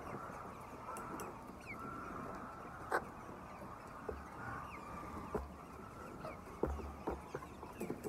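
A large flock of chickens in a poultry shed, a dense, steady mass of clucking and calls, broken by a few sharp clicks.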